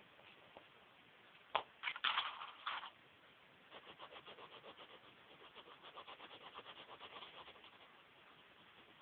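Graphite pencil scratching across paper in rapid back-and-forth shading strokes, several a second, for about four seconds. Shortly before, a sharp click and about a second of louder rustling.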